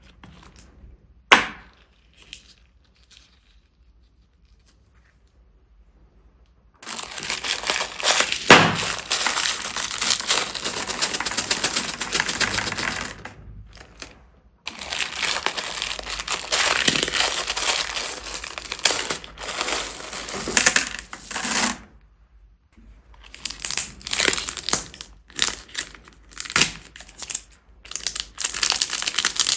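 Plastic bags crinkling and crackling as they are squeezed and worked with slime, in long dense stretches with short pauses between them. A single sharp click comes about a second in, and it is quiet for several seconds before the crinkling starts.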